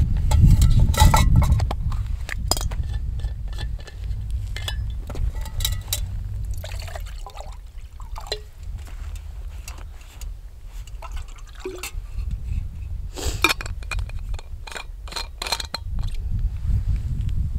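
Water poured from a stainless steel bottle into a metal cooking pot, among scattered clinks and knocks of the pot, lid and bottle being handled. A low rumble of wind on the microphone, strongest in the first couple of seconds, runs underneath.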